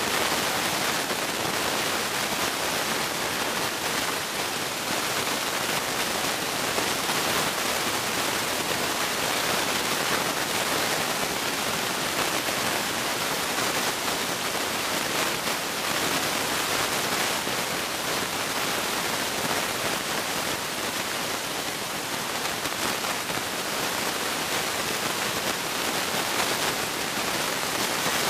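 A steady, even hiss with no distinct events, stronger in the highs than the lows.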